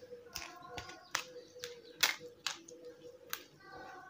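Metal spoon pressing and scraping grated lemon pulp against a plastic mesh sieve to strain out the juice: a run of sharp, irregular clicks and taps, roughly two a second.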